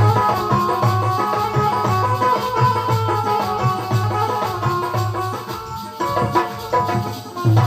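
Instrumental interlude of Bundeli Rai folk music: a held, droning melody over deep drum beats about twice a second, with rattling percussion.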